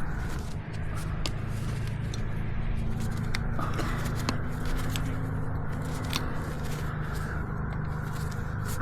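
Hoof trimming on a miniature horse: scattered sharp clicks and scraping from hoof nippers working the hoof wall, over a steady low hum.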